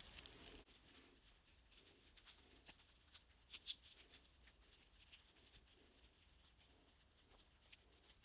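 Near silence, with a few faint, light clicks and taps scattered through it, a small cluster a little past the middle.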